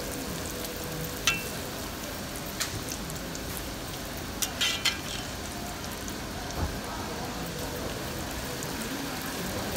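Puri deep-frying in hot oil in a wok, sizzling steadily, as a slotted metal spatula presses and turns it. A few sharp clicks of the spatula against the wok, with a quick cluster of them near the middle.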